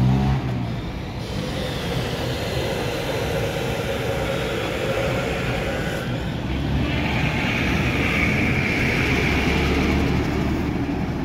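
Street traffic: vehicle engines and tyres running steadily, with a large truck passing close by in the second half, when the low rumble grows louder.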